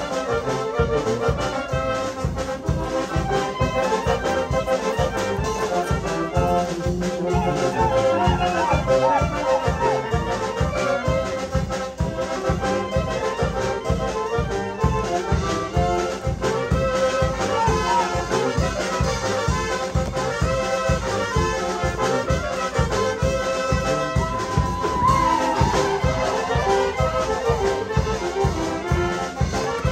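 Brass band music for a son or chilena from Oaxaca's Costa Chica, with trumpets carrying the melody over a steady quick bass beat.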